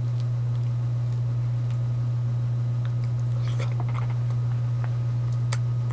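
Chewing and biting on mandarin segments, with soft wet clicks as the peeled fruit is pulled apart: a few together about three and a half seconds in and a sharp click near the end. A steady low hum sits underneath.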